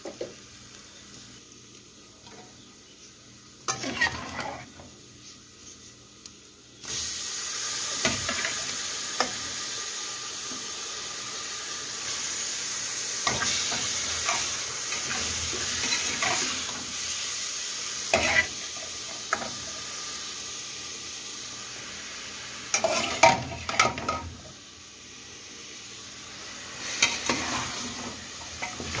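A few spoon knocks in an aluminium pot, then, about seven seconds in, a sudden loud sizzle as beef tripe goes into the hot pan with the fried onion and garlic. It keeps frying steadily while a slotted spoon stirs and scrapes against the pot, with bursts of clattering near the end.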